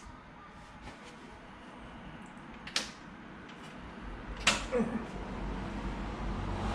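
Handling noises from working a rubber cover onto a motorcycle gear shift lever: two sharp clicks, about three and four and a half seconds in, the second followed by a short squeak, over a low rumble that builds from about four seconds in.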